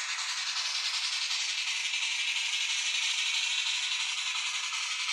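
Sound decoder of a DCC model steam locomotive playing its running chuff through the locomotive's tiny speaker: a steady hiss with a fast, even pulse and no bass.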